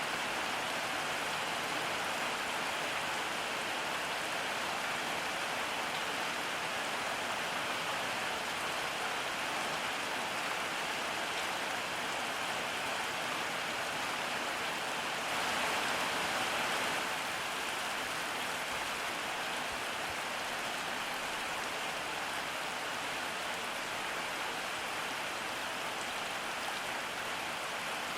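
Steady rain falling, a dense even hiss, swelling slightly louder for a moment about halfway through.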